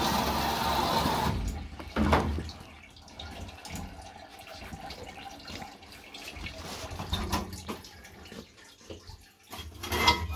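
Wash-down water spraying inside a vapor blast cabinet, rinsing the door glass, shutting off about a second in. Dripping and small knocks follow, with a louder clunk near the end as the cabinet is handled.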